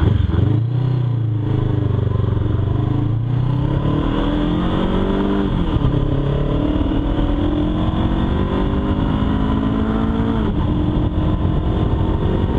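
Honda CB500X's parallel-twin engine running under way. The revs sag and then climb steadily, dropping at gear changes about six seconds in and again about ten seconds in.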